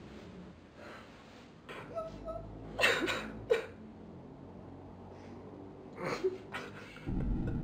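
A few short, sharp breathy vocal sounds from a man, such as gasps or whimpers, the loudest about three seconds in and again about six seconds in. A low rumble starts near the end.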